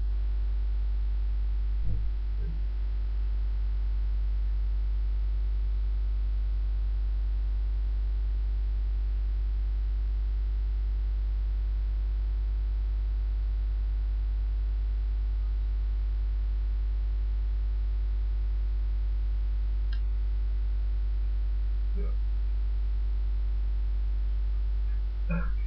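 Steady electrical mains hum, a constant low drone. A few faint short sounds break in about two seconds in and again near the end.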